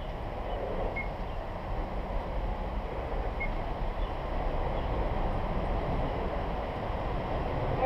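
Distant approaching train: a low rumble that grows slowly louder.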